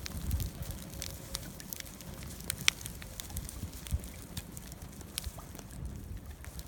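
Wood campfire burning, with irregular crackles and sharp pops over a low rumble of flames; one pop a little under three seconds in and another about four seconds in stand out.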